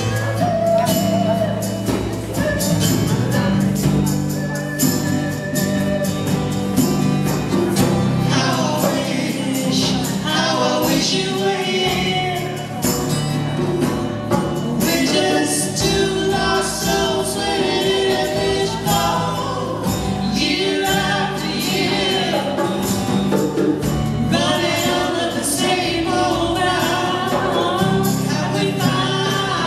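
A small live band playing a song: several voices singing over acoustic guitar and electronic keyboard, with hand percussion.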